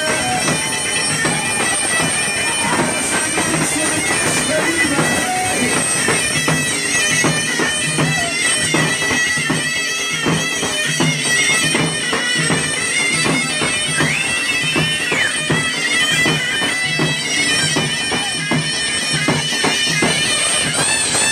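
Zokra (Tunisian reed shawm) playing a loud, ornamented, wavering melody over a steady drum beat: live folk dance music.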